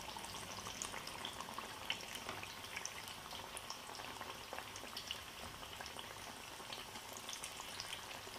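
Gram-flour-battered potato slices deep-frying in hot oil: a steady sizzle with many small scattered crackles.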